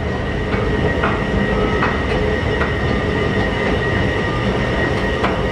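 Escalator running while being ridden: a steady rumble with a thin high whine, and a few sharp clacks from the moving steps.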